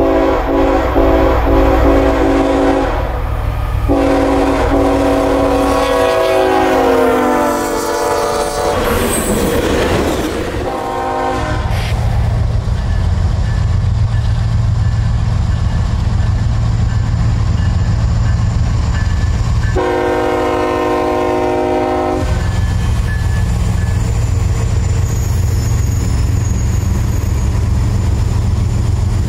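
Diesel freight locomotive's multi-note horn sounding, broken briefly about three seconds in, its pitch sliding down as it goes by. Then the locomotive's engine rumbles steadily as it approaches, with one more horn blast of about two seconds midway.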